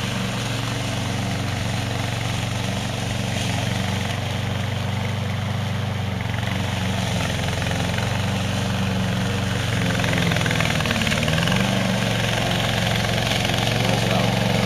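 Evatech Hybrid Goat 22T remote-control slope mower running steadily, its gas engine driving the cutting blade through tall, thick grass. The engine pitch dips briefly about eleven seconds in, and the sound grows slightly louder after that.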